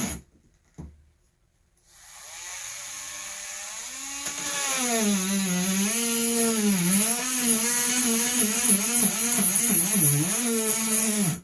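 Cordless Dremel rotary tool with a ball bit grinding dry through a stone. It stops right at the start, spins up again about two seconds in, and runs as a whine whose pitch dips and recovers again and again. It cuts out suddenly at the end, with the battery dying so that the tool won't stay on.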